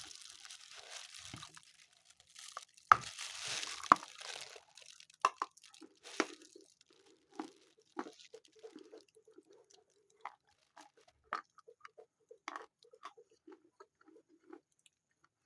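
A person chewing a piece of Khrapovsky natural chalk: soft, irregular chewing clicks, with a louder crunch about three seconds in. The chalk dissolves quickly and hardly crunches.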